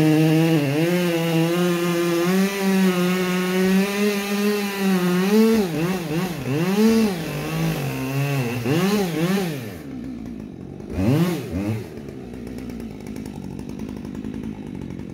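Husqvarna two-stroke chainsaw bucking maple logs. It runs at a steady high pitch for about five seconds, is then revved up and down several times, and drops to a quieter, lower running sound after about ten seconds.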